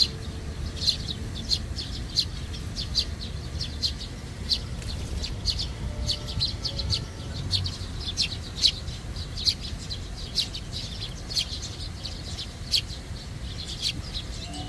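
A flock of Eurasian tree sparrows chirping: many short, sharp chirps in quick succession, over a steady low rumble.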